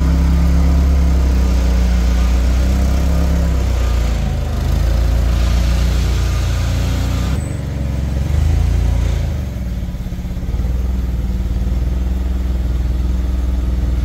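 Daewoo G25E forklift engine running loudly, its pitch rising and falling as it revs while moving a pallet.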